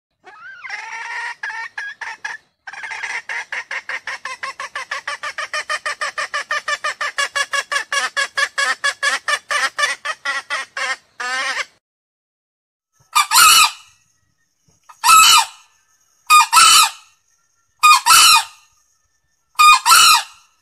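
Male green junglefowl calling: a long run of rapid clucking notes, about five a second and quickening, then five short, loud crows about a second and a half to two seconds apart.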